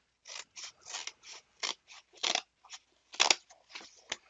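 A shipping package being cut open: a quick series of short, irregular cutting and scraping strokes, about three a second, through the packing.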